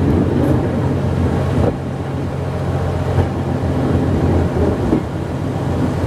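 A train's engine running steadily with a low hum as the train rolls slowly along the track, heard from aboard a wooden brake van. The hum drops slightly a little under two seconds in.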